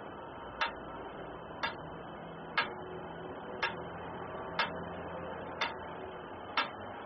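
Metronome ticking steadily about once a second, seven ticks in all, set to stand in for a heartbeat as the count that paces a slow yogic breath.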